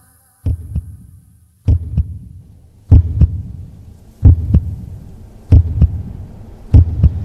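Heartbeat sound effect: doubled low thumps, a lub-dub, repeating about every 1.2 seconds and growing louder over the first few beats.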